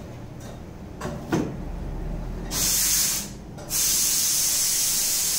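A knock about a second in, then a loud, steady kitchen hiss starting halfway through. It breaks off for half a second and then resumes.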